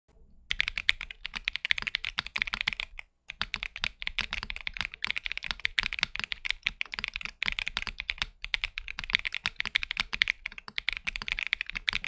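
Typing on an Akko ACR Pro75 V2 mechanical keyboard with Akko Cream Blue V3 tactile switches, a PC plate, stock stabilizers and PBTfans Neon keycaps: a dense, fast run of keystroke clacks. There is a brief pause about three seconds in.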